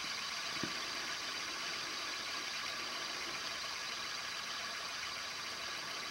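Spool of a 3D-printed plastic side-cast fishing reel spinning freely on its axle, a steady whir, with one short tick just under a second in.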